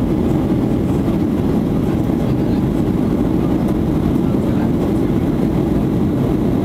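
Steady cabin noise inside a Boeing 737-800 in flight: the even drone of its CFM56 jet engines mixed with rushing air, heard from a window seat over the wing.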